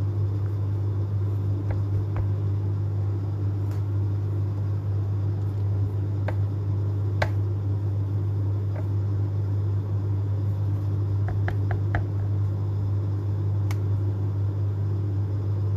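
A steady low mechanical hum, with a few faint light clicks scattered through it.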